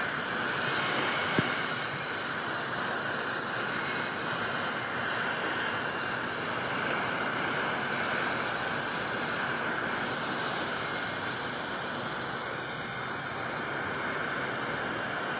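Wagner electric heat gun running on high, a steady blowing hiss of its fan and hot air, played across a headlight lens. One sharp click about a second and a half in.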